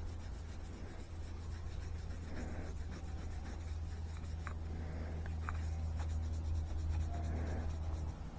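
A bar of stropping compound rubbed onto the leather of a homemade paddle strop: soft, scratchy rubbing strokes, like crayon on leather, over a steady low hum.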